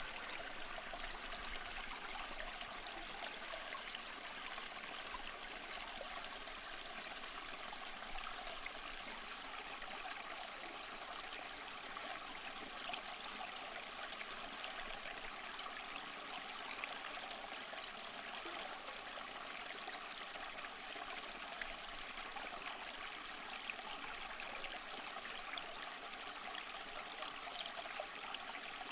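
A small stream flowing and trickling steadily over stones, a constant rushing hiss with tiny splashes scattered through it.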